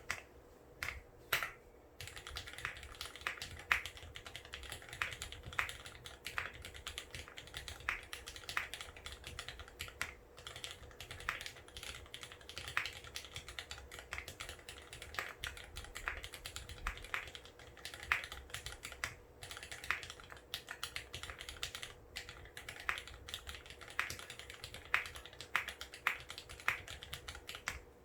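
Typing on a mechanical keyboard with lubed Cherry MX Vintage Black linear switches, GMK keycaps on an aluminium plate: a steady run of keystrokes after a brief, sparser start.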